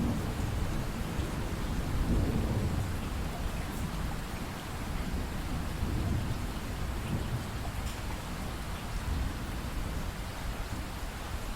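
Steady rainfall with a low rolling rumble of thunder, strongest about two seconds in and dying away toward the end.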